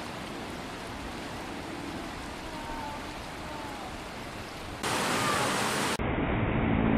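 Steady rush of flowing water, like a river or waterfall. It turns louder and brighter about five seconds in, then cuts suddenly to a duller, muffled rush with a low rumble.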